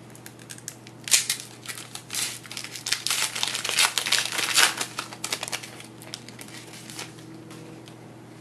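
The foil wrapper of a trading-card pack being opened by hand, crinkling and crackling in dense bursts for a few seconds, then tapering to a few light rustles and clicks.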